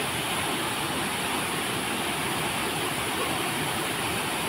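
Waterfall pouring down a rock face, a steady, unbroken rush of water.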